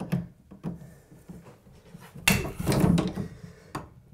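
Hand PEX crimping tool being positioned over a crimp ring on PEX pipe: light clicks and knocks of the metal jaws and handles against the fitting, with a louder clatter about two seconds in.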